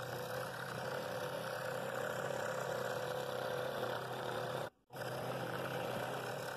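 Scroll saw fitted with a No. 9 Pegasus modified-geometry blade running steadily as it makes a 23-degree bevel cut through a thick cherry board covered with a taped pattern. The sound cuts off abruptly for a moment about three-quarters through and then resumes.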